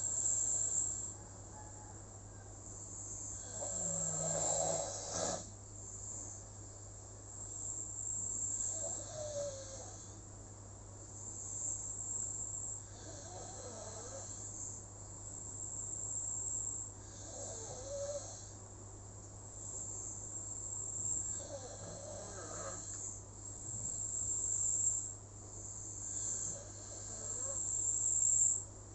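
Slow, even snoring, one snore about every four to five seconds, with crickets chirping high in the background.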